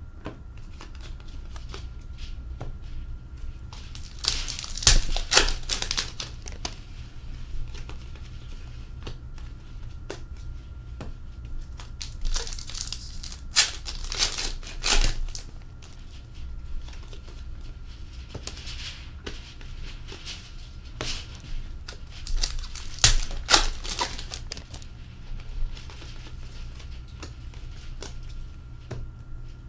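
Foil hockey card packs being torn open and crinkled, in three loud rustling bursts about nine seconds apart. Between them come soft clicks of cards being flipped and laid down on a glass countertop.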